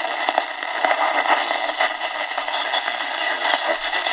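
Tecsun 2P3 AM radio's speaker hissing and crackling with medium-wave static while tuned between stations, no station clearly coming through.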